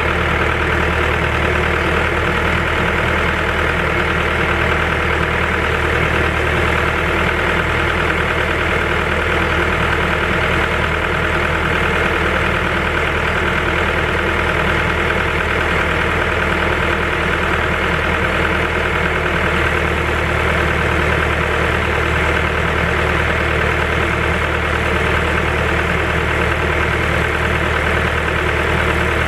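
Heavy diesel engine idling steadily at an even, unchanging speed, most likely the Timberjack 1010B forwarder's engine.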